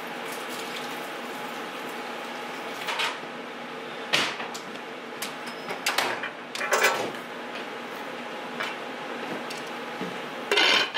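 Pots and pans being handled on a kitchen counter, with several short clanks and knocks, the loudest about four seconds in and a cluster a couple of seconds later. A steady hum runs underneath.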